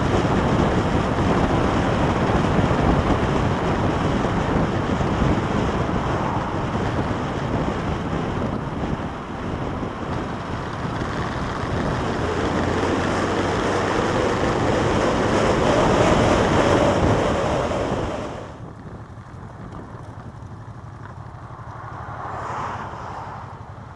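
Wind rushing over the microphone of a motorcycle-mounted camera, mixed with engine and road noise while riding at road speed. About eighteen seconds in it drops suddenly to a much quieter low hum of the motorcycle rolling slowly, with a brief swell near the end.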